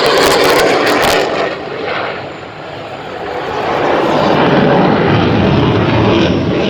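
Jet noise from an F-CK-1 Ching-kuo (IDF) fighter's twin afterburning turbofans in flight, with a few sharp crackles in the first second. The noise eases off about two seconds in, then builds again into a loud, low rumble as the jet passes.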